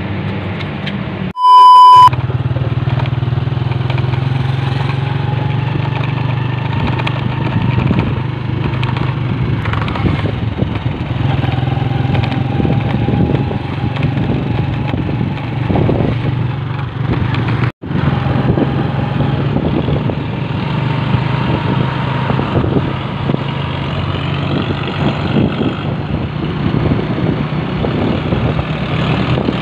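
Motorcycle engine running steadily while riding along a road, with wind buffeting the microphone. About a second and a half in, a loud half-second beep replaces everything else, and near the end of the middle the sound cuts out for an instant.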